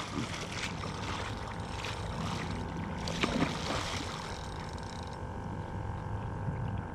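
Water splashing as a hooked tarpon thrashes at the surface, with a stronger splash about three seconds in, over steady wind and water noise and a faint steady hum.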